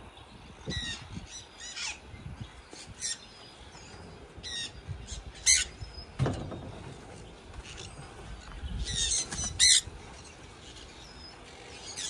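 Parrots calling with short, high squawks, scattered singly and in small clusters, the loudest about five and a half and nine and a half seconds in. A few low thuds are heard in between.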